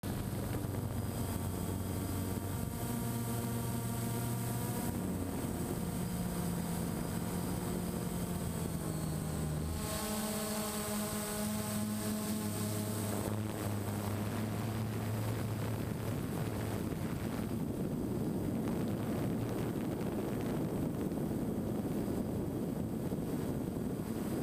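DJI Phantom quadcopter's electric motors and propellers whining, heard from the camera on board, with steady tones that shift in pitch every few seconds. Wind rushes over the microphone, growing stronger in the second half.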